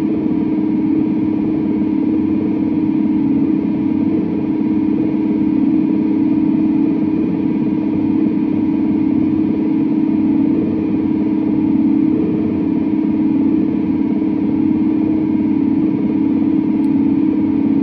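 Electric guitar run through a chain of effects pedals, sustained as a dense, steady, noisy drone that sits mostly in the low-mids and barely changes.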